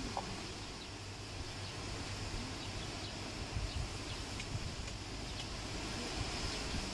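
Steady outdoor background: a continuous high hiss with a low rumble underneath and a few faint ticks.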